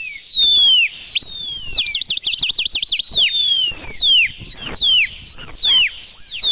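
Shrill whistling: a string of pitch slides falling from high to low, with a fast warbling trill about two seconds in, then more falling slides one after another.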